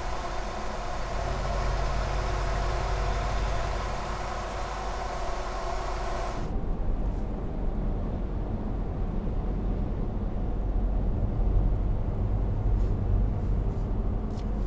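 Ram 1500's 5.7-liter Hemi V8 through a Corsa 3-inch Sport dual rear-exit stainless exhaust, running steadily at low revs, heard at the tailpipe. About six seconds in, it switches to the sound inside the cab: deeper and more muffled, with the higher sound gone.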